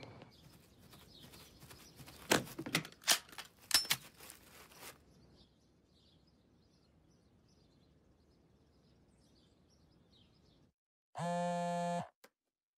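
Cartoon sound effects: a handful of sharp knocks or footsteps over street noise, then faint bird chirping, then a steady buzzing tone about a second long near the end, followed by a single click.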